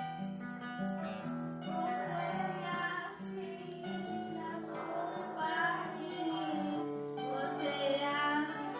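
Band music with a plucked guitar and a singing voice.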